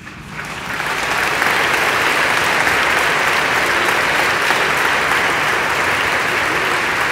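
Audience applauding, building up over the first second and then holding steady and loud.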